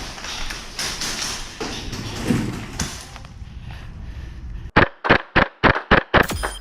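Rustling movement noise for about four seconds, then an airsoft gun firing a quick string of about seven sharp single shots, three or four a second.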